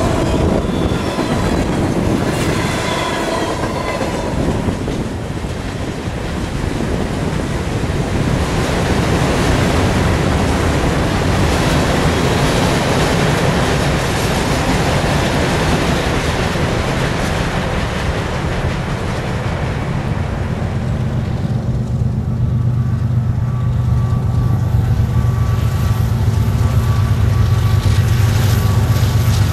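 Freight train cars rolling past on the rails, with wheel clatter and a brief, faint squeal from the wheels in the first few seconds. About three-quarters of the way through, a low diesel locomotive engine drone comes in and grows louder as a pair of Norfolk Southern locomotives draws near.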